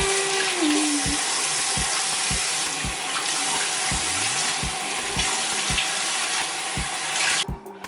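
Water running steadily, cutting out for a moment near the end, over a music beat of low thumps about twice a second.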